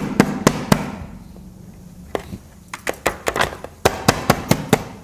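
Sharp knocks and taps of a cake container being rapped to release a freshly baked cake: a few knocks at first, then two quick rattling runs of taps in the second half.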